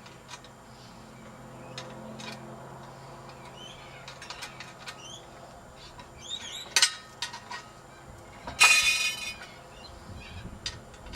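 Scattered light clicks of a spanner working the screws on a plastic dog-fountain valve, with birds chirping in the background and one loud bird call about nine seconds in.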